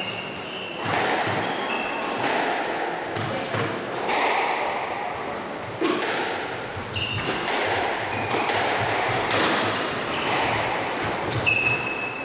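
Squash rally: the ball striking rackets and thudding off the walls again and again, with sneakers squeaking in short high chirps on the wooden court floor.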